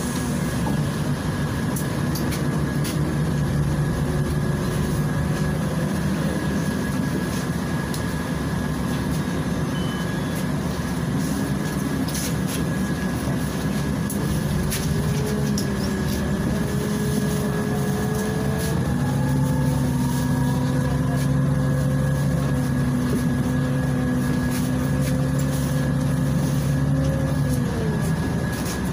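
Inside a Volgabus 5270G2 city bus: its Yuchai six-cylinder natural-gas engine runs low at first, climbs in pitch as the bus gathers speed about halfway through, holds steady, then drops back near the end. A thin steady high whine and occasional light rattles run under it.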